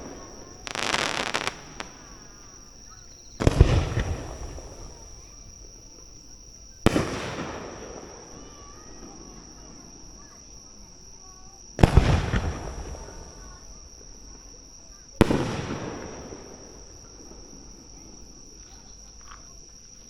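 Aerial fireworks shells bursting overhead: five sudden loud booms, each echoing away over a second or two, the first a crackling burst about a second in. A steady high insect trill runs underneath.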